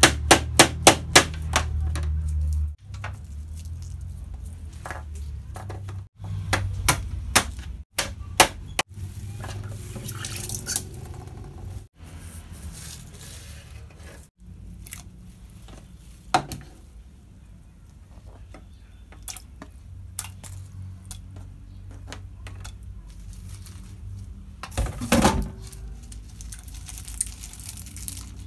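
Kitchen knife chopping on a plastic cutting board: a quick run of sharp knocks at the start, then scattered single cuts, over a low steady hum. Near the end there is a louder knock and clatter.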